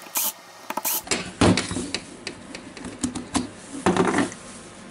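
Cordless drill driver spinning briefly in short bursts to back out the screws of a drill's plastic rear motor cover, followed by scattered clicks and plastic knocks as the cover is lifted off and set down.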